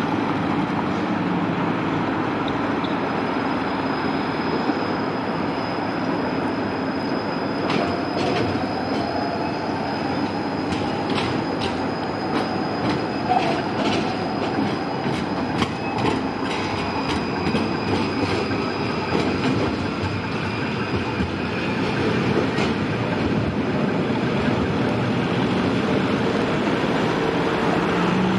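Articulated low-floor tram passing close, its wheels clattering over the rail junction in a fast run of clicks through the middle, with a thin, high, steady wheel squeal.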